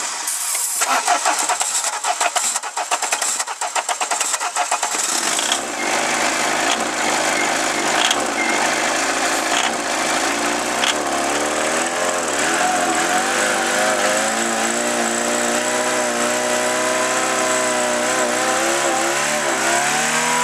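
Peugeot 205 diesel engine being started on ether, with its glow plugs dead. It fires raggedly and unevenly for the first few seconds, then catches about five seconds in and runs on with its revs wavering up and down: a loping cold idle.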